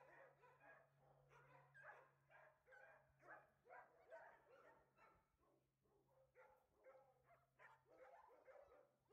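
Several dogs barking and yapping, faint and almost continuous, at about two or three barks a second with some overlapping.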